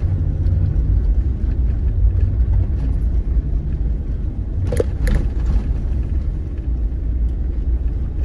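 Heard from inside the cabin, a car driving slowly along an unpaved dirt track, its tyres and engine making a steady low rumble. Two short sharp knocks come a little over halfway through.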